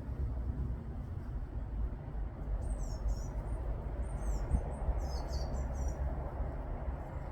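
A small bird chirping in a few quick high bursts about two to six seconds in, over a steady low rumble.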